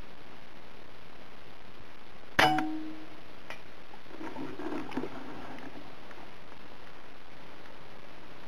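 A single shot from a Theoben Rapid .25 precharged pneumatic air rifle: a sharp crack with a short metallic ring about two seconds in, then a faint click about a second later.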